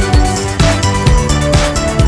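Background music: electronic music with a steady beat and held synth notes.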